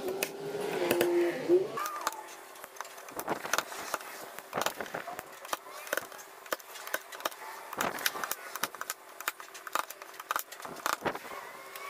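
G90E stud welder and slide-hammer dent puller working low spots on a steel car panel: many short sharp snaps and clacks as the tip is welded on and yanked, over a steady hum.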